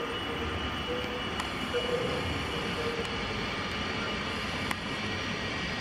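Steady hum and hiss of a PKP Intercity passenger train at the platform, with a faint whine that comes and goes.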